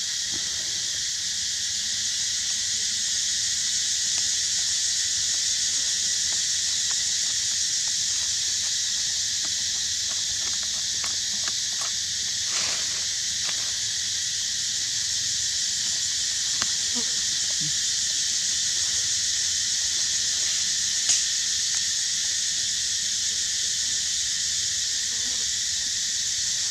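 Steady high-pitched hiss with a thin steady whine under it, with a few faint clicks around the middle and one sharper click near the end.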